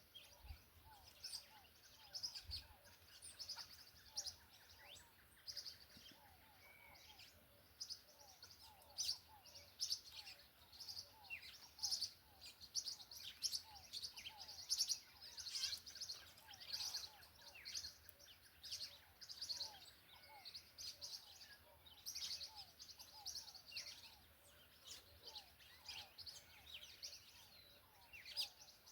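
Faint, dense chirping of many small birds: short high calls and twitters overlapping throughout, with fainter short repeated calls lower in pitch.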